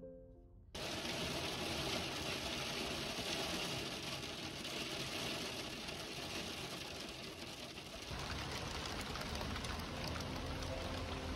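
Heavy rain falling, starting abruptly about a second in.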